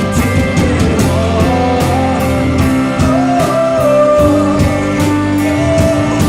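Live rock band playing an instrumental passage: electric guitar lead over bass and a steady drum beat.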